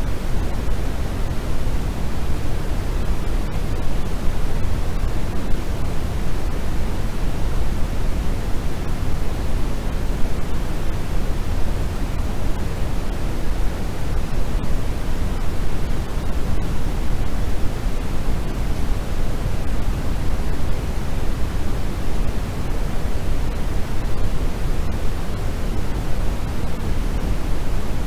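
Steady, unchanging hiss of sleep noise. Its weight lies in the low end and it thins out toward the top, closer to pink noise than to true white noise.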